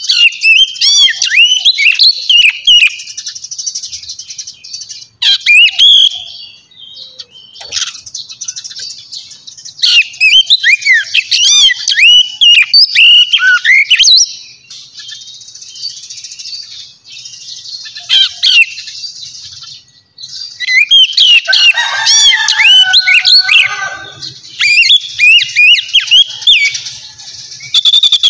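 Small birds chirping and twittering rapidly close to the microphone, in bursts of several seconds with brief lulls between them. A lower, harsher call joins in about three quarters of the way through.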